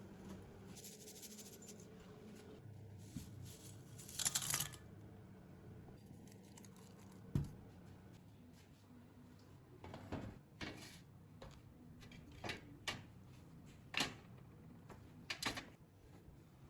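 Scattered light clicks and knocks of small objects being handled, with a brief scraping rustle about four seconds in, over a faint low hum.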